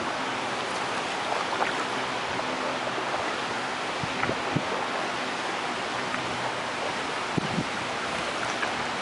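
Steady rush of water splashing and lapping around a small boat being paddled along, with a few light knocks about four and seven and a half seconds in.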